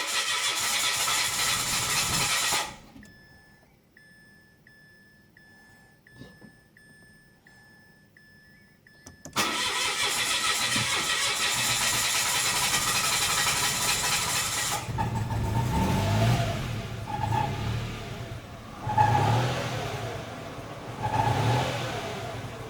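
A Mitsubishi Mirage that is hard to start, being cranked on the starter without running smoothly. Cranking for a few seconds, then a pause with only a faint steady electronic tone, then cranking again for about six seconds. That is followed by an uneven low rumble that surges every couple of seconds, the engine stumbling rather than settling to an idle.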